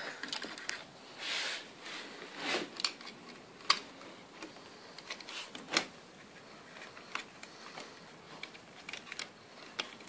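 Scattered small clicks and light knocks, with brief rustling, from hands handling the plastic housing, wiring and connectors of a solar electric fence energiser.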